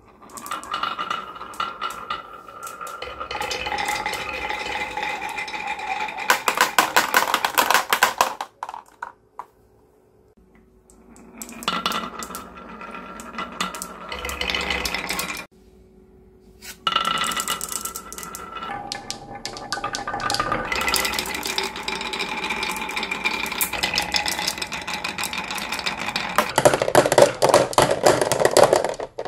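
Glass marbles rolling and clattering down grooved wooden wave-slope tracks, a steady rolling rumble full of rapid clicks as they knock the curves and each other. This comes in three runs, broken by brief silences about eight and fifteen seconds in. The loudest clatter comes near the end, as marbles drop into a plastic toy dump truck's bed.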